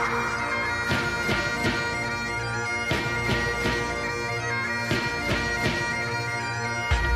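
Background music: sustained, droning held notes over a steady drum beat.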